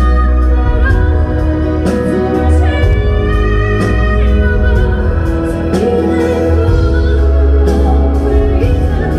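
A woman singing the chorus of a ballad live with a full band, holding long notes that slide between pitches over a heavy, booming bass. The sound is picked up from the audience seats.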